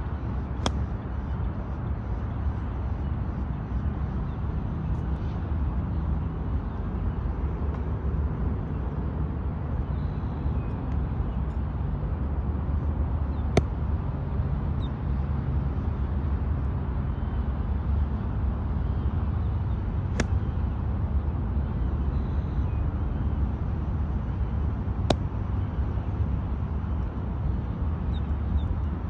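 Golf wedge shots struck off range turf: four sharp club-on-ball clicks several seconds apart, the second the loudest. Under them, a steady rumble of wind on the microphone.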